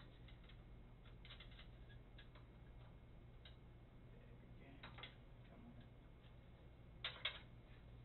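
Faint metallic clicks of a wrench and screwdriver working the nut on a pinsetter's chain adjustment screw: a few scattered ticks, the loudest pair near the end, over a low steady hum.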